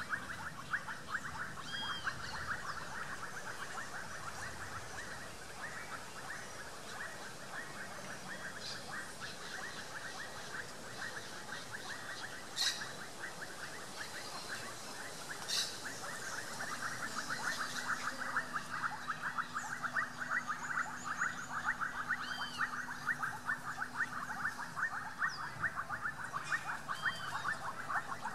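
Outdoor wildlife ambience: a dense, fast-pulsing chorus of calling animals runs steadily throughout. Now and then a short high bird chirp cuts in, and there are two sharp clicks in the middle.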